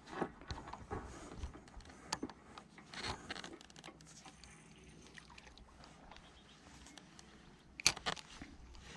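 Gloved hands handling a spinning rod and reel while casting: scattered scrapes and clicks, then a short, louder cluster of clicks about eight seconds in.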